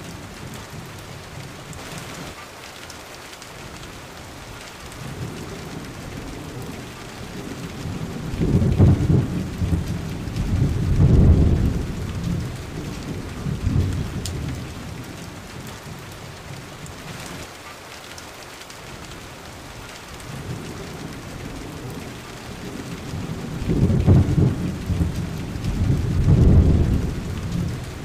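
Steady rain falling, with low rolling thunder that swells up and dies away twice, about a third of the way in and again near the end.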